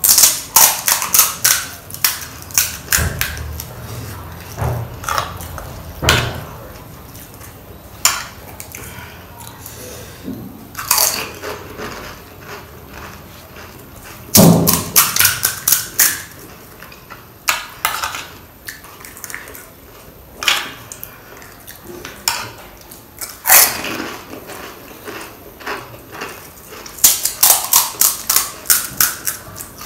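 Close-up eating of pani puri: crisp hollow puri shells crunching in quick bursts of crackling as each one is bitten and chewed, three times, with softer wet chewing and scattered single cracks between.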